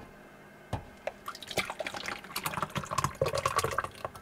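Hot broth poured from a cooking pot into a plastic mug: a trickling, splashing stream that starts about a second in and runs until near the end. A sharp knock at the very start is the loudest single sound.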